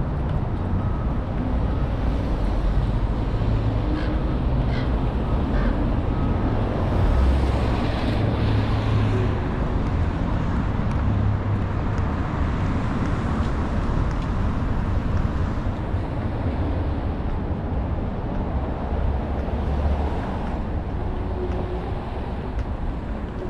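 City street traffic: steady road noise and passing cars, with one vehicle passing louder about seven to nine seconds in.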